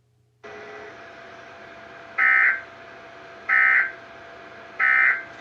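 NOAA Weather Radio's Emergency Alert System end-of-message code: three short, loud digital data bursts about 1.3 s apart over steady radio hiss that comes in about half a second in. The three bursts mark the end of the alert broadcast.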